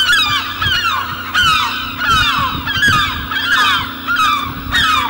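A flock of birds calling, many overlapping calls that each fall in pitch, one after another, over a faint steady low hum.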